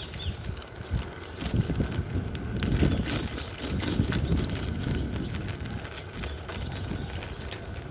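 Wind buffeting the microphone during a ride, a gusting low rumble that is strongest about three seconds in, over tyre noise on a wet road.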